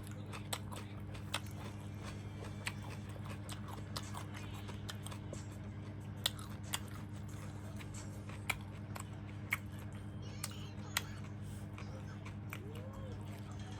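Close-up eating of a bún đậu mắm tôm meal: chewing and biting, with irregular sharp crunches and clicks. A steady low hum lies underneath.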